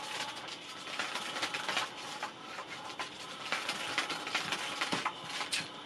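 Battery-powered 'Catch Me If You Can 2' cat toy running: a small motor whirring under a steady run of quick clicks and taps from the wand sweeping around beneath its fabric cover.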